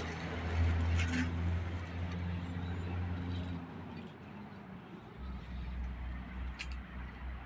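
Low motor-vehicle engine hum with a few short clicks. The hum drops out about halfway through and returns about a second and a half later.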